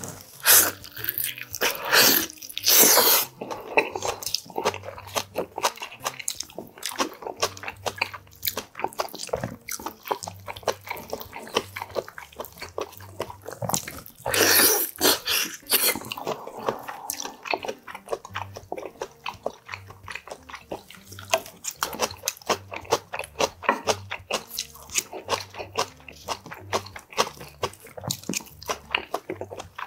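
Close-up eating sounds of a person biting and chewing boiled beef oxtail meat off the bone: a steady run of small chewing clicks, with a few louder bites near the start and around the middle.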